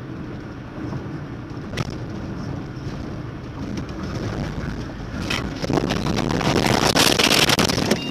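Car interior road and engine noise on a rough country road, with a couple of sharp knocks. From about five and a half seconds in, a loud, rough, crackling rumble builds as the car runs off the road into the roadside grass and brush.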